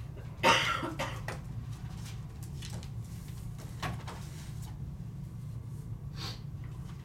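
Papers and small objects being handled at a meeting table and picked up by the table microphones: a loud, short rustle or knock about half a second in, then a few fainter clicks and knocks, over a steady low hum.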